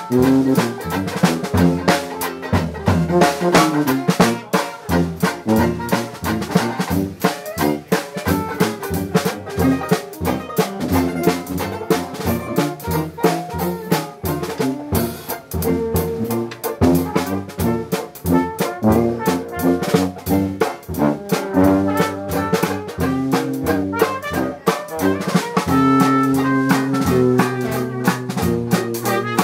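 Live Dixieland jazz band playing, with tuba, trombone, banjo and drums over a steady beat.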